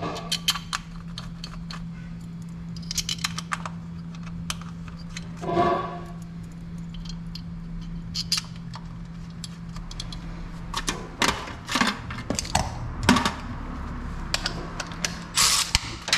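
Small metallic clicks and clinks of valve cover bolts and hand tools being handled and threaded in on a Toyota Tundra engine, coming more often in the second half, over a steady low hum.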